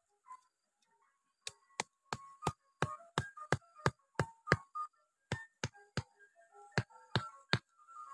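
Bamboo stake being hammered into the ground: sharp wooden knocks about three a second, starting about a second and a half in, with a short pause near the end. Background music plays under the knocks.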